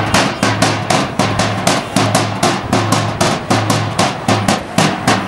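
A drum slung at a street drummer's waist, beaten in a fast, steady rhythm of about four to five strokes a second. It starts suddenly.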